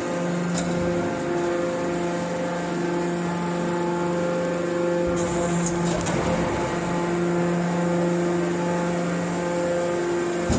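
Hydraulic scrap-metal baler's power unit running with a steady hum, rougher for a moment about halfway through.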